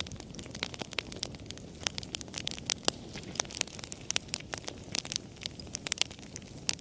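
Wood fire burning in a fireplace, crackling with many sharp irregular pops over a low steady rumble of the flames.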